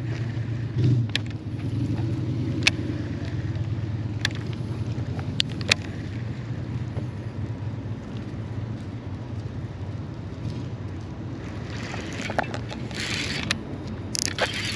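Steady low hum of a boat's motor, with scattered sharp clicks and taps and a few short rushing bursts near the end.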